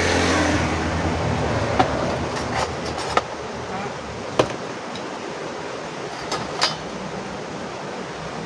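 Several sharp clicks and knocks, about six spread over a few seconds, from hands handling the wiring connectors and cables on an LED TV's mainboard, over steady background noise.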